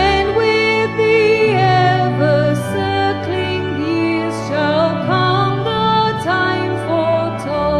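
Slow, tender sung music: a voice with vibrato carries a melody over long held low accompaniment notes that change every second or so.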